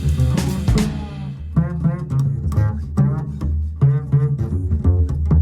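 Music: a deep bass line under a run of plucked string notes.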